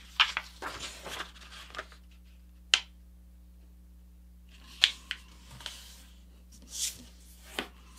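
A sheet of paper being folded in half by hand on a cutting mat: short bursts of paper rustling and sliding, a sharp tick about three seconds in, then a few soft brushes and ticks as the fold is pressed down.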